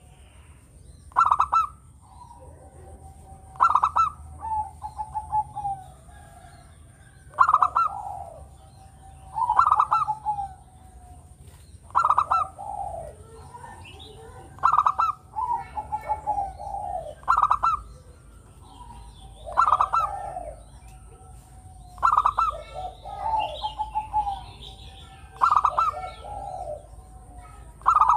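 Zebra dove (perkutut) singing its cooing song: each phrase is a quick run of clipped notes followed by a lower rolling coo, repeated about every two and a half seconds.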